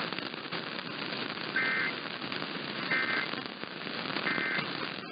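Emergency Alert System end-of-message code: three short bursts of rapid two-tone digital data, about a second and a half apart, signalling the end of the alert. Underneath runs a steady hiss and crackle of AM radio static.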